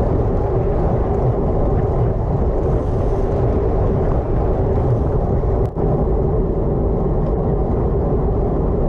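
Wind rushing over the microphone of a bike-mounted action camera on a moving road bike: a steady, loud low rumble that breaks off for a moment about six seconds in.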